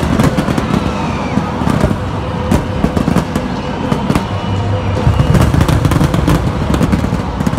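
Aerial fireworks shells bursting in rapid succession: a continuous rumble of booms with many sharp cracks and crackles over it.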